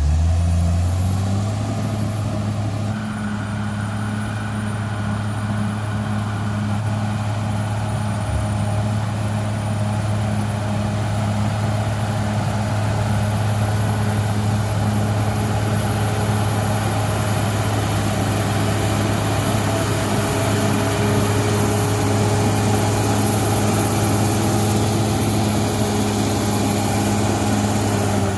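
Caterpillar D6R XL bulldozer's diesel engine running steadily at a nearly constant pitch, with a thin high whine over it.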